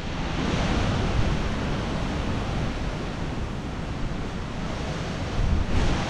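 Storm-force wind rushing steadily through the forest canopy, with gusts buffeting the microphone in a low rumble that swells near the end.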